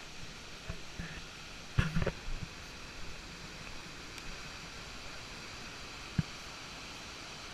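Steady hiss of rushing water, with a few dull knocks about two seconds in and one more about six seconds in.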